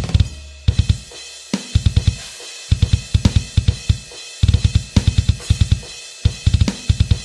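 Isolated deathcore drum track: fast runs of double bass drum strokes with snare and cymbal hits, played in stop-start phrases. The phrases are broken by brief gaps where the cymbals ring out.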